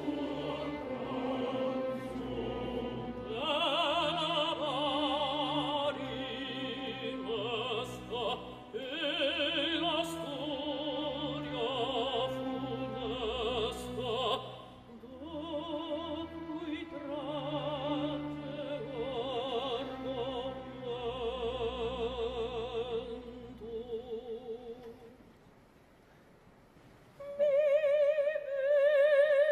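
Operatic mezzo-soprano singing with wide vibrato over a soft orchestral accompaniment. About 25 s in, the music drops almost to silence for a couple of seconds; she then comes in loud on a long held note.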